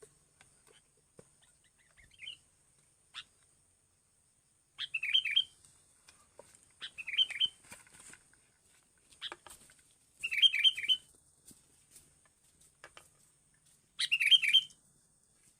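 A small songbird calling in short chirping phrases, each a quick run of repeated notes lasting under a second, given about every three seconds. A faint steady high whine runs underneath.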